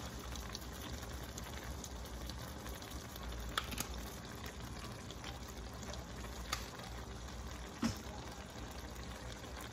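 Pot of Haitian goat and vegetable stew simmering on the stove with a low, steady bubbling and a few short pops.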